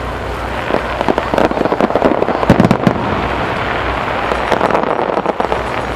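Star mine fireworks barrage: many bangs and crackles in quick succession, densest and loudest about one to three seconds in, then easing into a steadier noisy rumble.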